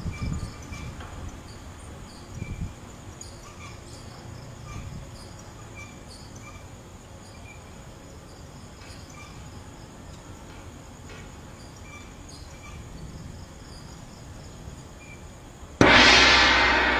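Insects chirping in the night, short high chirps about once a second over a faint steady background. Near the end a sudden loud hit cuts in and fades slowly.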